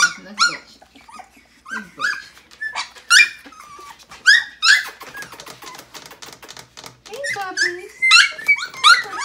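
Siberian husky puppies about two and a half weeks old whining and yelping in short, high-pitched cries that come in bunches, with a quieter stretch of soft clicks about midway.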